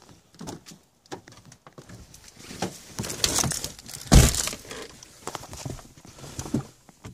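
Handling noise from a phone being moved around: irregular rustling and small knocks, with one heavy thump about four seconds in.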